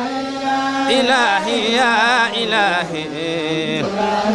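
A man chanting an Islamic devotional poem (qasida) into a microphone, with long drawn-out sung lines whose pitch rises and falls in wavering ornaments. A steady low tone is held underneath.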